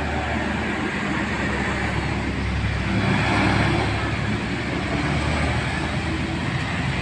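A bus engine running with road and traffic noise around it, growing louder about three seconds in as it passes, then easing back.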